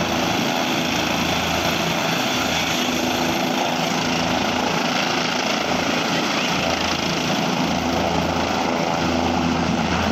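Helicopter running on the ground with its rotor turning: a steady turbine whine and rotor beat, the low beat growing stronger near the end as the rotor wash starts to blow up dust.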